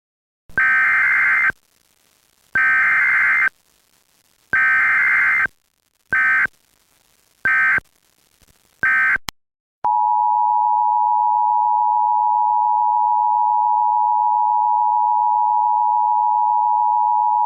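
Emergency Alert System tones: three one-second bursts of the screeching digital SAME header, then three short bursts, then the steady two-tone attention signal starting about ten seconds in.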